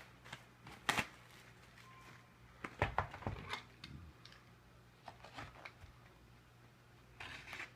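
A sealed trading-card box being opened by hand: scattered soft crinkles, clicks and tearing of its wrapping and cardboard, with a cluster about three seconds in and another near the end.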